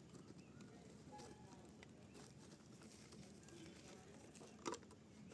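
Faint crunching and crackling of dried mud being crushed and crumbling: scattered small clicks, with one sharper crack near the end.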